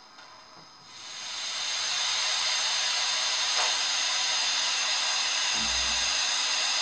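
A Soundtraxx Tsunami steam sound decoder in a model Santa Fe 4-8-4 locomotive plays a loud steam hiss through its small speaker. The hiss swells in about a second in and then holds steady. A short low thump comes near the end.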